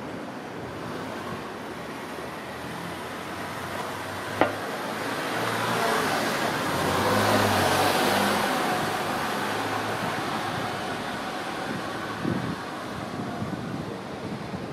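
A motor vehicle passing on the street, its engine and tyre noise swelling to a peak about halfway through and then fading over steady traffic noise. A single sharp click sounds about four seconds in.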